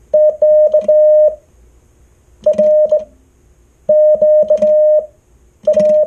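Morse code sent by hand on a chrome telegraph key: a steady mid-pitched beep keyed into dots and dashes in four short groups of characters, with a click at each key stroke.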